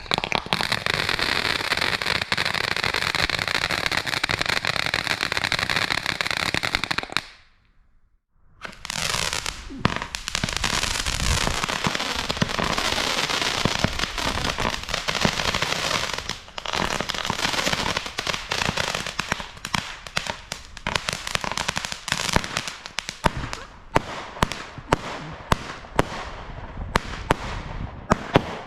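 Consumer fireworks burning: a steady hissing spray that cuts off about seven seconds in. After a brief silence, a dense crackling starts and thins out near the end into separate sharp cracks.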